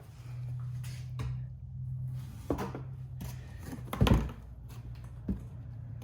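The removed plastic rear diffuser being handled and set down: a few knocks and thumps, the loudest about four seconds in, over a steady low hum.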